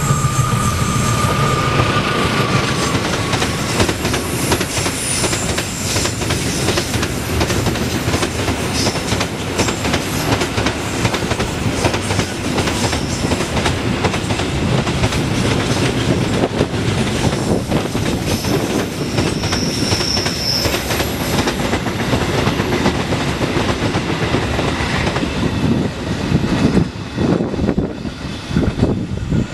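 Diesel-hauled container freight train passing close by: the locomotive goes past first, then a long run of loaded flat wagons rolls by with steady wheel rumble and clickety-clack over the rail joints. The sound drops away in the last few seconds as the tail of the train pulls off.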